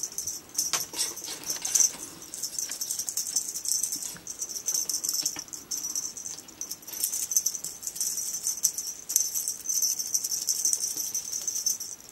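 A feather wand cat toy jingling and rattling continuously as it is jiggled for a kitten to play with, with small clicks and knocks throughout.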